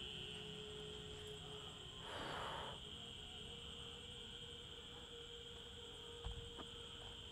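Faint, steady chirring of crickets, with a faint steady low hum beneath. A brief soft hiss comes about two seconds in, and a small knock near the end.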